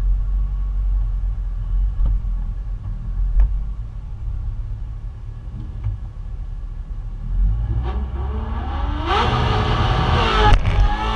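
A 1988 Dodge Ram 50's 2.0-litre four-cylinder engine idles with a low rumble, heard from inside the cab. Near the end, engine revs climb and the sound grows loud, with a sharp click shortly before the close.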